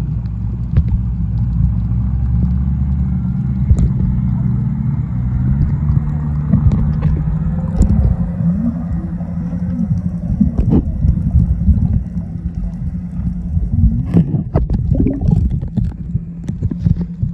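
Boat engine heard underwater: a steady low hum, with scattered clicks and knocks. From about twelve seconds in the hum fades and irregular splashing and knocking take over.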